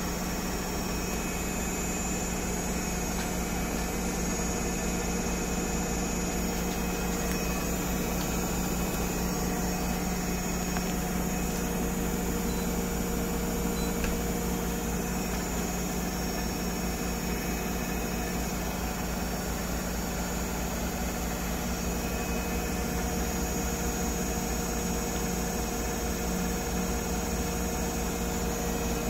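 GE GFW850 front-load washer spinning its drum: a loud, steady hum with a constant high whine over it, turbine-like.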